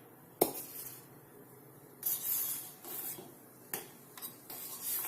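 A spoon scooping ground spice powder from a container and tipping it into a cup of milk. There is a sharp tap about half a second in, then a few short scraping rustles with light clicks of the spoon against the container.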